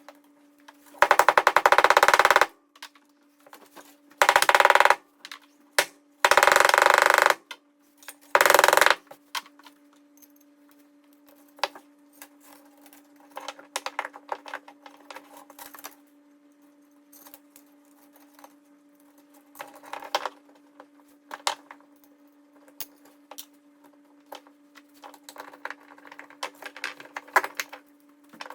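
A power tool runs in four short, loud bursts while a wall anchor is put in, sped up. Scattered small clicks and taps of hand work follow, over a steady hum.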